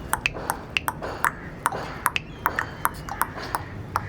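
A quick, irregular run of about fifteen sharp clicks or taps, each with a short ringing note.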